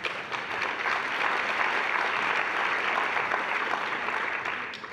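Audience applauding in a large hall, welcoming a speaker who has just been introduced; the clapping starts at once, holds steady and fades out near the end.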